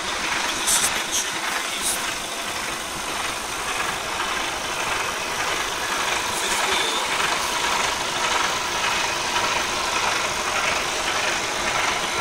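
Lorry tractor unit's diesel engine idling steadily.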